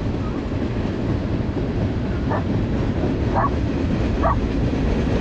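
Freight train of tank cars rolling across a trestle bridge: a steady low rumble, with short higher-pitched sounds about once a second from about two seconds in.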